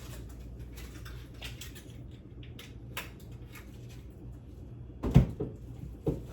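Kitchen handling noises: scattered light clicks and taps, then a loud knock about five seconds in and a smaller one just before the end, like a cupboard door or an object set down, over a steady low hum.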